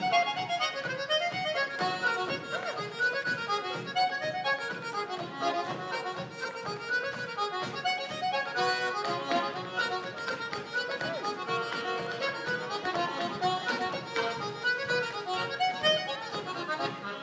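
Accordion and fiddle playing an Irish traditional tune together, a fast run of short notes.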